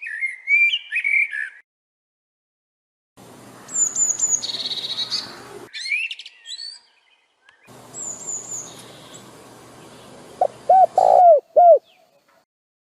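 Birds chirping and calling: quick high chirps and short whistled notes in several short stretches that start and stop abruptly, over a light background hiss. Near the end comes a quick series of four or five lower, arched notes.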